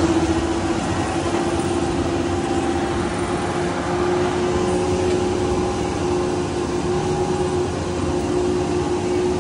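Tractor-drawn maize forage harvester running steadily while chopping maize for silage: a steady engine hum over an even rush of noise.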